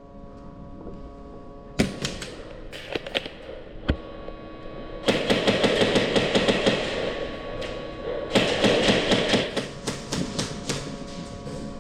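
Airsoft guns firing: a few single sharp shots, then two long bursts of rapid full-auto fire, each lasting about two seconds.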